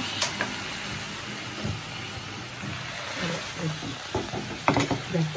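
Faint voices over a steady hiss, with two sharp clicks, one just after the start and one near the end.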